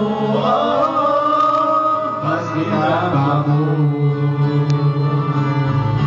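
Karaoke backing track of an Indonesian pop song playing loud over the room's speakers, an instrumental break between the sung lines, with a melody line bending during the first few seconds.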